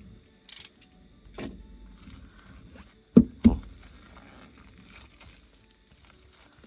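Handling of a shrink-wrapped cardboard box: a brief rustle of plastic film, then two sharp knocks a third of a second apart, a little past three seconds in, as the box is turned over and knocked against the table.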